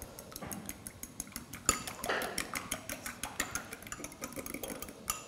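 A fork beating an egg in a small glass bowl, tapping against the glass in quick, repeated clinks.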